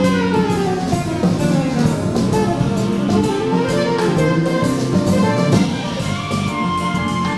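Live jazz quartet playing: a saxophone carries the line, with a falling phrase just after the start, over grand piano, upright bass and a drum kit with cymbals.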